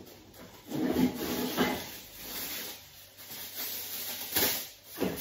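Aluminium foil crinkling and rustling as it is handled, in uneven bursts. The loudest come about a second in and again a little after four seconds.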